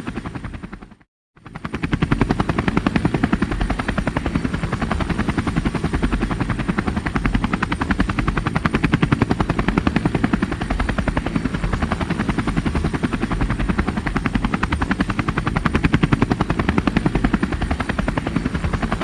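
Helicopter rotor blades chopping in a rapid, steady beat, with a faint high steady whine above. About a second in the sound fades out completely for a moment and comes straight back.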